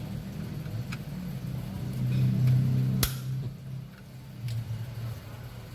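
Car parts being handled and refitted: one sharp click about three seconds in and a few faint ticks, over a low uneven hum.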